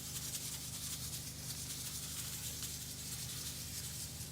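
Salt being poured steadily from its container into a bin for a vinegar rust soak: a continuous, even, grainy hiss.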